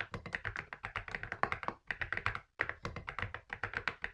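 Mechanical keyboard fitted with ABS cat keycaps being typed on quickly, a crisp run of keystrokes at about eight a second, broken by two short pauses around two and two and a half seconds in.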